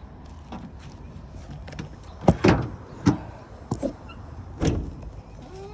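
A few separate clunks and knocks from a pickup truck's tailgate and bed being handled. The loudest come a little over two seconds in and near the end.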